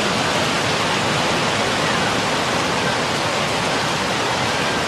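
Floodwater rushing steadily, an even noise of fast-moving water with no breaks.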